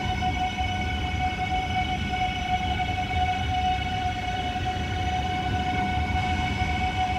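A High Capacity Metro Train, an electric multiple unit, rolling past at a steady slow speed. A steady, even-pitched whine sits over a continuous low rumble of wheels on rail.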